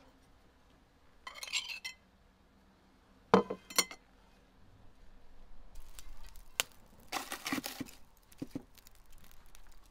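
Kitchenware handling: a block of butter is slid off a china plate into an aluminium cooking pot, with two sharp metallic knocks about three and a half seconds in, the loudest sounds. Later the pot is set down on a metal wood-fired stove with a scraping clatter and light clicking.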